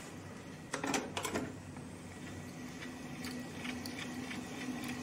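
Clicks and knocks as a hand handles the empty reel on a Beocord 2000 De Luxe reel-to-reel tape recorder, about a second in. The deck then runs with a steady low hum and faint ticking from its transport.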